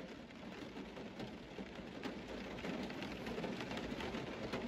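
A long hit drawn through a nectar collector: a steady crackling hiss of concentrate vaporizing at the hot tip as air is pulled through, slowly growing louder.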